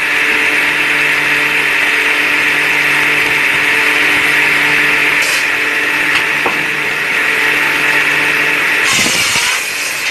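Electric woodworking power tool running steadily with a constant motor hum and a hissing whir. Near the end there is a brief louder disturbance, with the pitch dropping.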